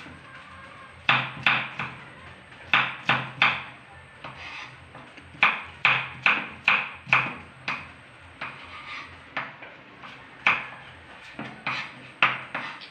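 Kitchen knife chopping onion on a wooden cutting board: sharp knocks in irregular runs of two to five, with short pauses between runs.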